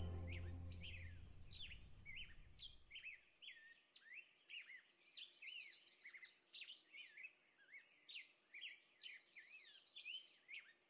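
Background music fading out over the first few seconds, leaving songbirds chirping: many quick, high chirps and short falling whistles, several a second.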